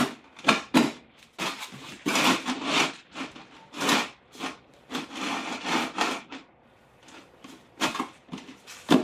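Plastic car ramps being slid across a concrete garage floor and wedged against the front tires: a run of scrapes and knocks, thinning out near the end.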